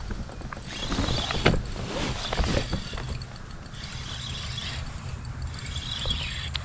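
Scattered clicks and knocks from a spinning rod and reel being handled and worked from a fishing kayak, over a steady low rumble. One knock about a second and a half in is the loudest.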